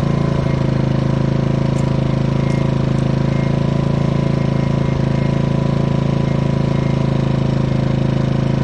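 Portable generator's small engine running at a steady, even speed, freshly cold-started on choke.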